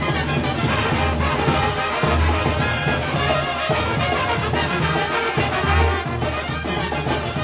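Mexican banda music: a brass band with trumpets and trombones playing over long, low bass notes.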